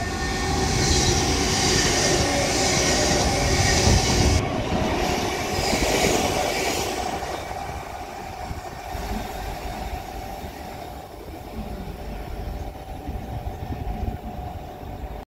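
West Midlands Railway Class 730 electric multiple unit running along the line through the station: a loud rush of wheels on rail and air with a steady electric hum. It fades after about seven seconds to a lower rumble.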